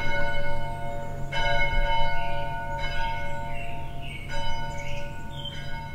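A single church bell tolling, struck about every one and a half seconds, each stroke ringing on into the next and the sound fading toward the end.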